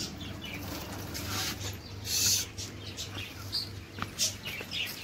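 Chickens calling in short bursts, the loudest about two seconds in and again just after four seconds, over the low steady hum of a Suzuki motorcycle engine idling.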